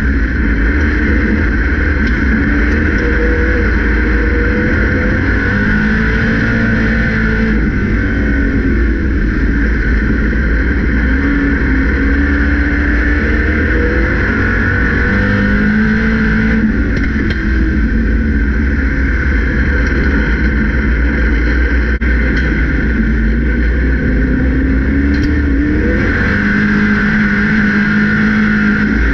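Grand National race car's engine heard from inside the cockpit, running hard at racing speed. Its pitch climbs and drops again in a cycle that repeats every few seconds, lap after lap.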